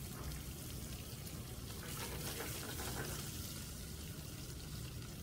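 Rockfish fillets pan-searing in olive oil: a steady sizzling hiss with light crackling.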